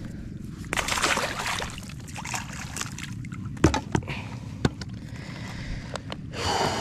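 Water sloshing and splashing in two bursts, about a second in and near the end, with three sharp knocks in the middle.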